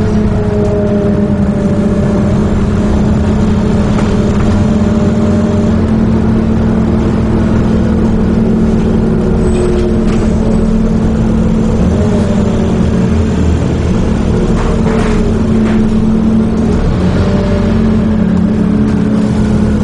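Scania OmniCity single-deck bus's engine and drivetrain heard from on board as the bus drives along: a steady low drone with a higher hum that rises and falls a little.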